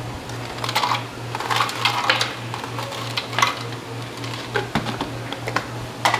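Plastic tea pitcher and its lid being handled and pressed shut, giving irregular clicks and knocks, over a steady low hum that pulses about four times a second.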